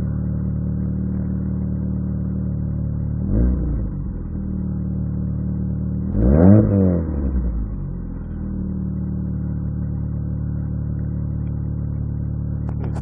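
1996 Mitsubishi Eclipse engine idling steadily, revved twice: a short blip about three seconds in and a bigger rev that rises and falls back to idle a few seconds later.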